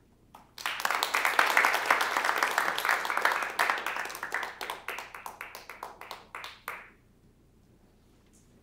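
Audience applauding, starting about half a second in and thinning out to a few last scattered claps near seven seconds.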